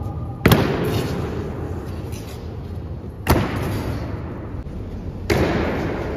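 Honour guards' boots stamping in a slow ceremonial march during a changing of the guard: three heavy strikes, spaced about three and then two seconds apart, each dying away in a long echo as in a large, hard-walled hall.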